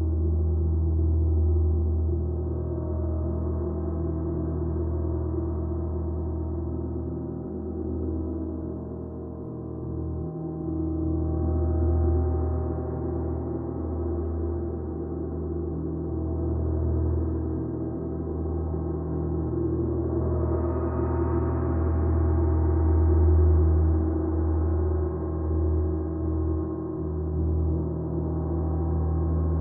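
Gongs resonating in a long, sustained wash of deep humming tones, swelling brighter about twelve seconds in and again about twenty seconds in.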